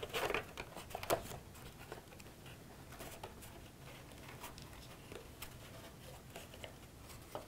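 Faint rustling and scattered light ticks of cardstock being handled and pressed as paper tabs are glued into place.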